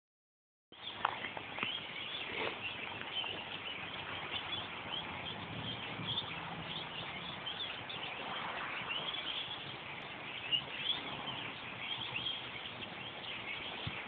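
A large flock of small birds chirping together in a tree, a dense, unbroken chorus of many short overlapping calls.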